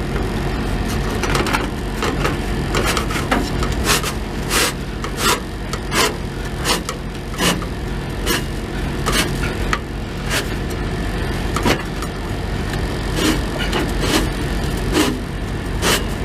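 Irregular sharp metal knocks and clanks as a new exhaust flex pipe is worked and forced onto a Peterbilt 379's exhaust pipe, about one or two a second. Under them runs a steady low vehicle rumble.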